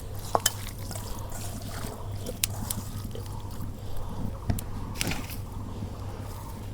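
Fire burning in a cooking stove under an empty kadai as it heats, with a steady low hum and scattered sharp crackles and clicks.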